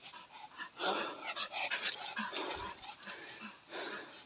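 Local hunting dog panting hard in quick, rhythmic breaths, about two to three a second. The dog is breathing heavily enough that the handler wonders whether it is worn out.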